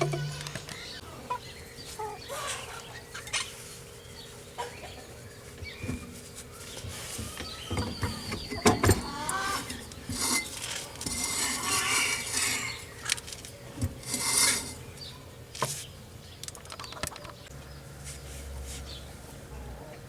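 Chickens clucking, with scattered metallic clinks and knocks from tools and car parts being handled.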